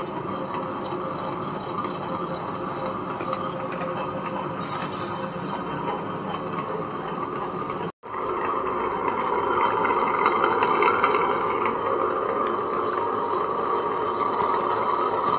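Vertical wet grinder running with a steady mechanical hum from its motor and turning stone rollers. The sound cuts out for a moment about eight seconds in, then comes back a little louder.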